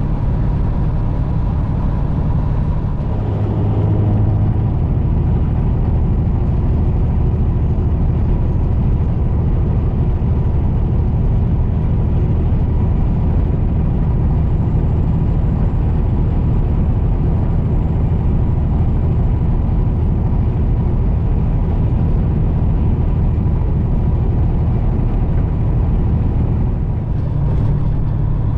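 Peterbilt semi truck's diesel engine running steadily at highway cruising speed with road and tyre noise, heard from inside the cab.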